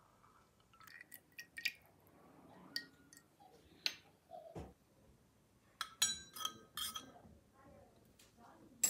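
Scattered light clinks and taps of small stainless steel utensils against a miniature steel pot. A cluster about six seconds in gives brief metallic rings, and there is one sharp clink near the end.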